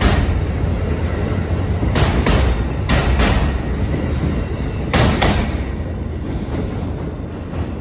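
Amtrak Amfleet passenger coaches rolling past at close range: a steady rumble with the wheels clacking over the track in pairs as each truck's two axles cross. The last car passes about five seconds in, and the sound then fades as the train moves away.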